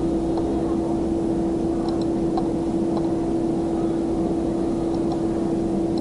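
Steady electrical hum with a constant single pitch over background hiss, with a few faint ticks.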